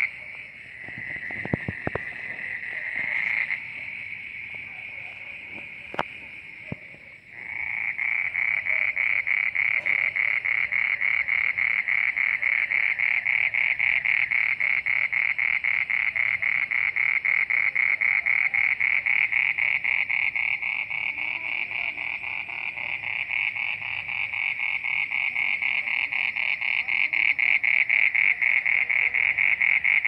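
A small animal calling from the ground: a loud, high, rapidly pulsing trill held at one pitch. It is faint and broken for the first several seconds, then comes back strongly about seven seconds in and runs on without a break. A few sharp knocks come in the first seconds.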